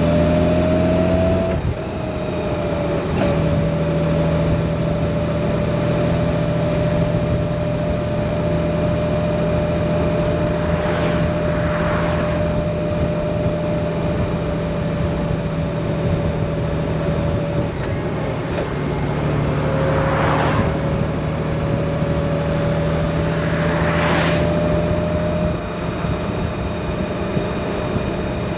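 Honda Gold Wing DCT's flat-six engine running steadily at cruising speed, heard from the rider's seat with road and wind noise. The engine pitch shifts briefly near the start and again about two-thirds of the way through, and a few short whooshes of oncoming cars pass by.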